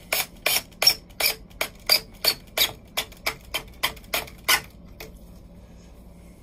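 Cordless drill driver tightening a hose clamp: an even run of sharp clicks, about three a second, that stops about five seconds in once the clamp is tight.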